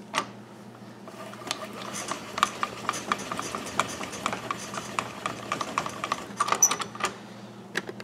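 Hand-cranked shotshell roll crimper spinning against a plastic shotgun hull as it is pushed up into the tool, rolling the hull mouth over the overshot card. A rapid, uneven clicking and scraping starts about a second in and stops about seven seconds in.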